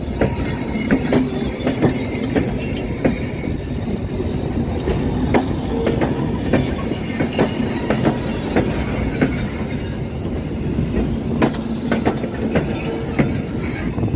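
Train running on rails: a steady rumble with frequent, irregular clacks and knocks, and a few short faint squeals.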